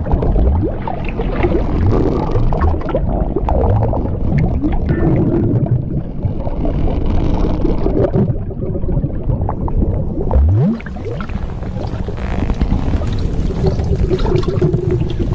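Cartoon blueberry-inflation sound effect: a continuous low mix of gurgling liquid and stretching, creaking swelling, with short rising low glides, the clearest about ten seconds in.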